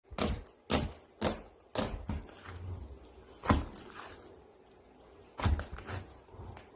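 Slime being pressed and poked by hand, giving a series of sharp pops and clicks: four about half a second apart, then two more spaced out.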